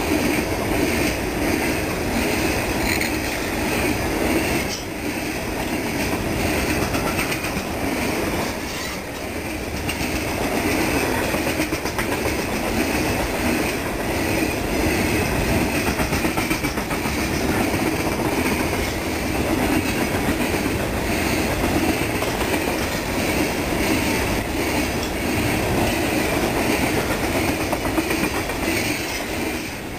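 A long string of coal gondola cars on a freight train rolls past, their steel wheels making a steady rumble on the rails. The sound dips briefly about four and a half seconds in and again about nine seconds in.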